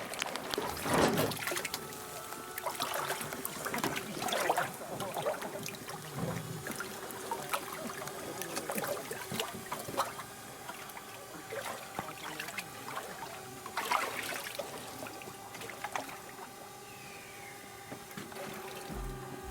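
Water splashing and trickling in irregular bursts, over a faint steady hum.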